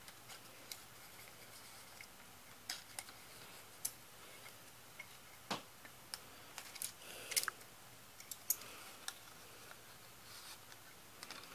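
Faint, irregular small plastic clicks and taps from handling a VHS cassette's tape reel and open shell, with a brief rustle of tape about seven seconds in.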